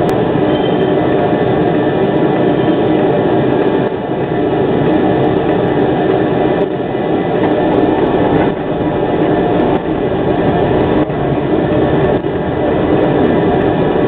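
Škoda 03T Anitra low-floor tram running along its tracks, heard from on board: a loud, steady rumble of wheels on rails and running gear, with small dips in loudness here and there.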